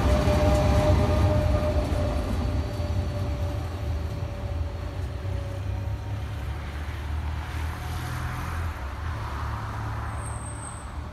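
Renfe Class 447 electric commuter train running past and away, its rumble and motor tones fading as it recedes. A brief high-pitched tone comes near the end.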